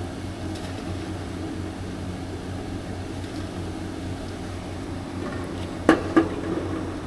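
Steady low mechanical hum, with two sharp clicks close together about six seconds in.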